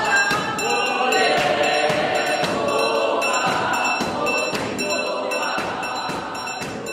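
A choir singing over music with a steady beat, the voices holding long notes.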